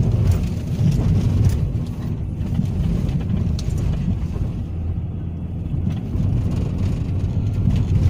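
Car cabin noise while driving over a sandy beach track: a steady low rumble of tyres and engine heard from inside the car.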